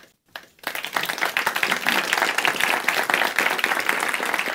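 Audience applauding: after a couple of isolated claps, the clapping swells about half a second in into steady, dense applause.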